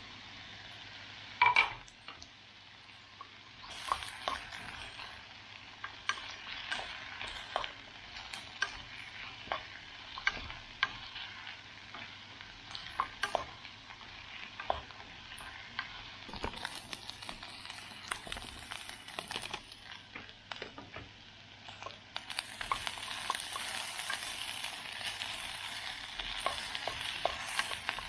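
Sliced carrots, onion and eggplant sizzling in oil in a nonstick pan while a wooden spoon stirs them, with frequent light knocks of the spoon against the pan. There is one sharp clack about a second and a half in, and the sizzle grows louder near the end.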